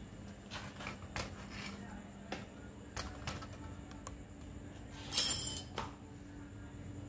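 Irregular small clicks and taps of hands handling a bicycle's rear derailleur and drivetrain, with a louder clattering rustle about five seconds in. A faint steady hum sits underneath.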